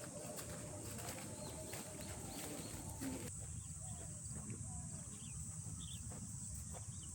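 Forest ambience: a steady high-pitched insect drone with short bird chirps and scattered light clicks and knocks. The background changes abruptly about three seconds in.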